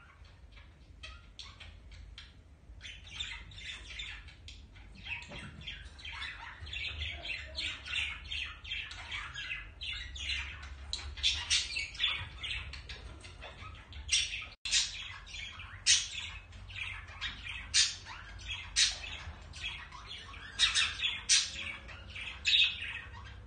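Budgerigars chattering in a rapid, continuous run of short chirps and squawks, the warbling of a courting pair, with several louder sharp calls in the second half.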